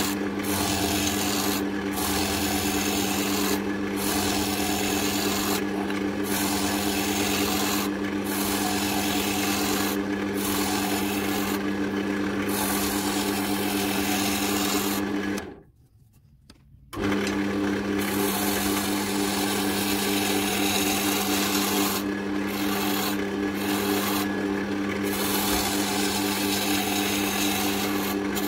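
Wood lathe running with a steady hum while a turning tool cuts a spinning oak handle blank, a rough scraping hiss broken by brief gaps about every two seconds. All sound cuts out for about a second and a half just past the middle.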